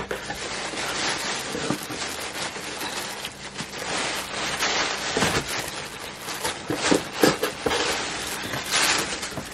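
Plastic packaging crinkling and rustling continuously with many small crackles, along with cardboard box flaps scraping and bumping, as an item is dug out of a shipping box.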